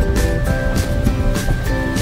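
Background music with a steady beat and held synth-like notes.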